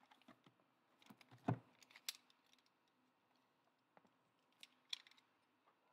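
Faint, scattered knocks and taps of sealed cardboard trading-card boxes being lifted off a stack and handled, the loudest about one and a half seconds in, with a couple of sharper clicks near the end.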